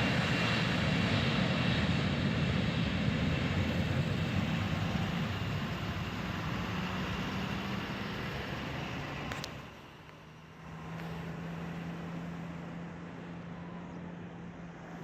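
Airliner's engines during takeoff, a loud, even noise that slowly fades over about ten seconds as the plane moves away, then drops off sharply, leaving a quieter low hum.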